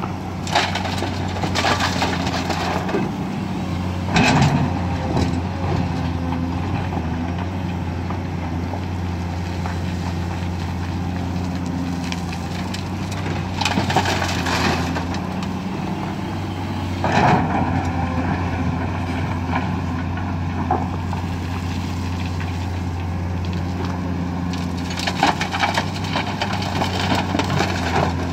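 Komatsu PC210 excavator's diesel engine running steadily, with gravel from its bucket pouring and clattering into the steel bed of a dump truck in several loud bursts: near the start, in the middle and near the end.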